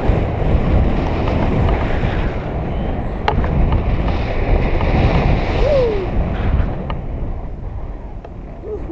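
Airflow buffeting the microphone in flight under a tandem paraglider: a steady, loud rush of wind noise that is heaviest in the low end.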